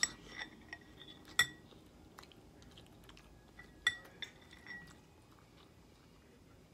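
A metal fork clinks against a glass bowl several times, each clink ringing briefly; the sharpest come about a second and a half in and again near four seconds. Soft chewing sounds run between the clinks.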